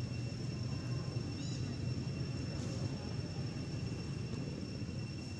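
Outdoor ambience: a steady low rumble under a thin, steady high tone, with one short high chirp about a second and a half in.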